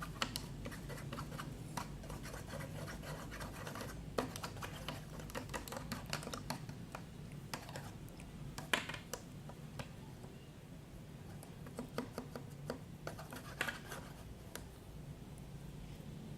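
A stirring stick scraping and tapping against a bowl as slime ingredients (glue, colour and water) are mixed: irregular scrapes and small clicks, with a few louder knocks.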